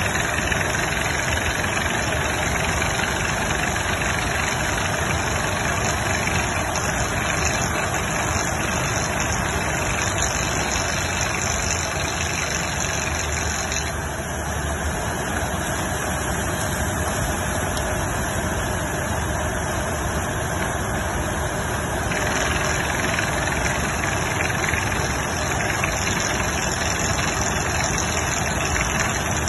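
Crawler-mounted water well drilling rig running steadily: engine noise mixed with the hiss and rush of water and air spraying from the drill head.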